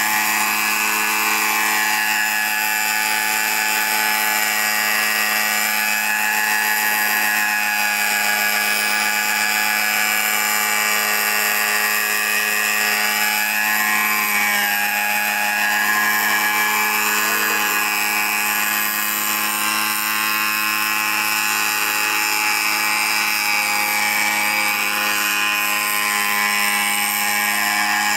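Scale RC helicopter's O.S. MAX-46FX-H two-stroke glow engine running at flying power with its rotors, a steady high-pitched whine whose pitch shifts a little now and then.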